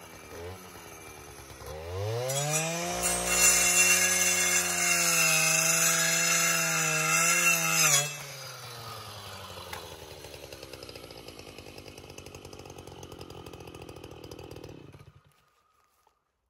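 Stihl FS 561 C two-stroke brush cutter with a circular saw blade revs up from idle to full throttle, and the blade cuts through a thick hardwood trunk for about five seconds. It then drops back to idle and the engine is switched off about a second before the end.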